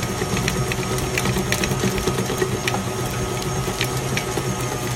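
KitchenAid stand mixer running steadily, its motor humming as the beater creams margarine in the metal bowl, with scattered light clicks.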